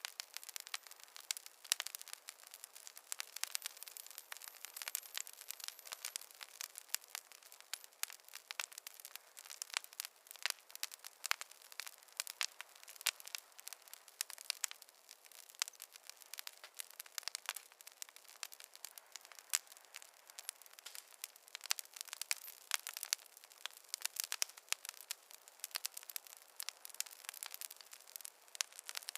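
Wood fire crackling in a fireplace: a steady run of irregular small pops and snaps.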